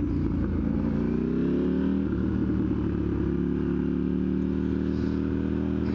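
KTM 890 Duke R parallel-twin engine running through an aftermarket catless exhaust while riding; the engine note rises for about a second, then holds steady.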